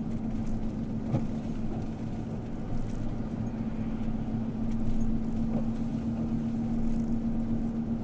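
Four-wheel-drive van driving on a snowy highway, heard from inside the cab: a steady low rumble of engine and road noise with a constant hum at one pitch.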